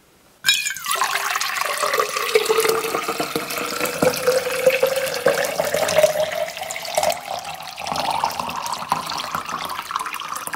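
Water poured in a steady stream from a pitcher into an insulated metal tumbler, the tone of the filling rising slowly as the tumbler fills. It starts about half a second in and stops abruptly near the end.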